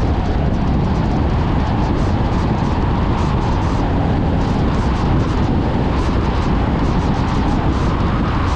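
Car driving along a road: steady engine rumble with tyre and road noise.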